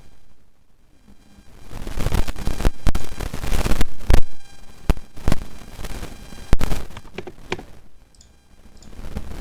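Mechanical keyboard with lubed silver linear switches being typed on: scattered sharp keystroke clacks over a hissing rush that swells and fades. The first second or so is quiet.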